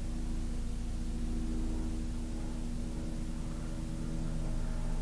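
Steady low machine hum with a few faint held tones and no change in level.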